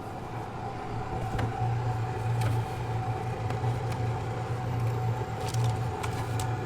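Steady low hum of rooftop HVAC equipment running, with a faint higher steady tone and a few light clicks and taps.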